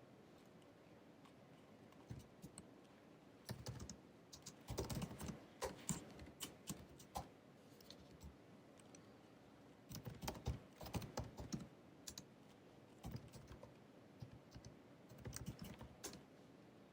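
Typing on the built-in scissor-switch keyboard of a 2019 16-inch MacBook Pro: quick runs of key clicks starting about two seconds in, in several bursts with short pauses between them.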